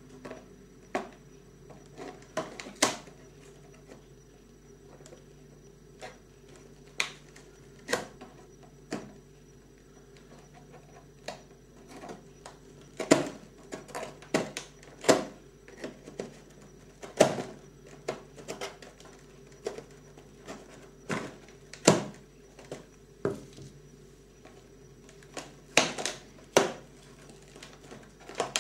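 Fingers picking, prying and tapping at the cardboard door of an advent calendar: irregular sharp clicks, taps and scrapes, coming more often after about twelve seconds, over a faint steady hum.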